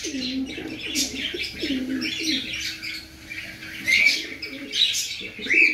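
Pigeons cooing in low, wavering notes, with sharp high bird chirps over them; the chirps are loudest about four seconds in and again near the end.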